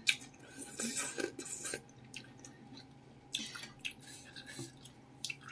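Close-up eating sounds from a mouthful of meatball soup with noodles and greens: wet slurping as a leaf is sucked in off a spoon, then chewing, in several short bursts. A spoon dips into the broth about three seconds in.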